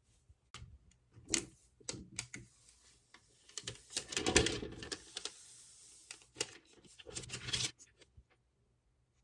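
Hands handling a tablet and its packaging or accessories: a run of sharp clicks and taps mixed with rustling, thickest and loudest in the middle, dying away about a second before the end.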